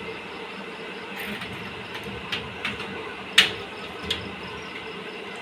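Glass window panes being slid open in their frames behind an iron grille, giving a few scrapes and knocks, the sharpest about three and a half seconds in, over a steady hiss of rain outside.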